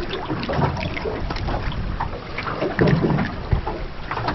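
Wind buffeting the microphone, with choppy water slapping irregularly against the hull of an anchored small boat.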